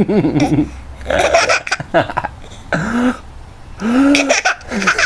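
A small child laughing in several short bursts with pauses between them.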